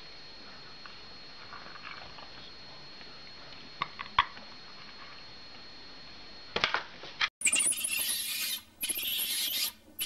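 Faint scrapes and two sharp clicks as a cat and a parrot paw and peck at a plastic slow-feeder treat bowl, over a faint hiss with a thin steady high whine. About seven seconds in, the sound cuts to a loud rushing noise.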